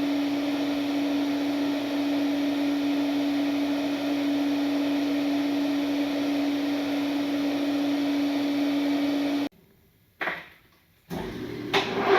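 A steady machine hum with one constant tone that cuts off suddenly near the end, followed by a short knock and a different, quieter hum.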